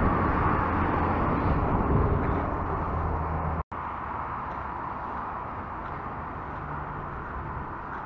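Outdoor background noise: a steady rushing hiss with a low hum in the first half. It breaks off for an instant about three and a half seconds in and comes back quieter.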